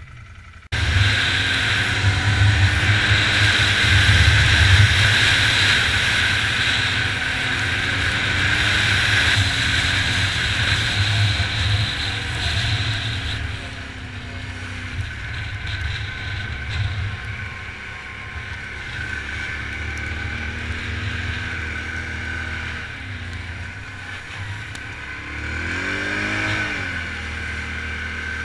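Can-Am ATV engine running under way, with steady rumble and hiss, louder in the first half. Near the end a short rev rises and falls.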